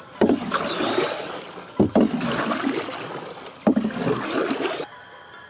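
Paddle strokes in lake water from a small rowing boat: three strokes about two seconds apart, each a sudden splash followed by a wash of swirling, dripping water.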